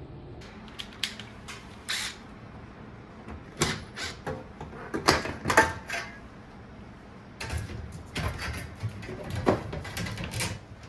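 Irregular sharp clicks and knocks in short clusters, typical of small hand tools and parts being picked up, set down and worked.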